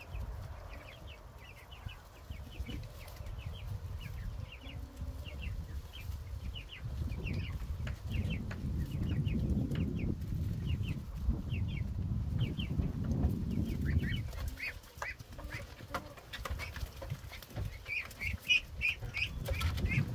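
Birds chirping in short high calls, about two a second, growing louder near the end, over a low rumble that swells in the middle and drops away about two-thirds of the way through.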